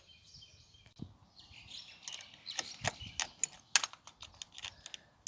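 Irregular metallic clicks and taps of a hand tool working a car battery terminal clamp loose, several a second and busier in the second half.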